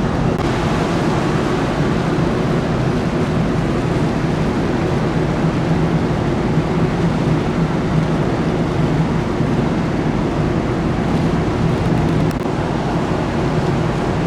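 Large car ferry under way: a steady low engine drone under constant rushing wind and sea noise.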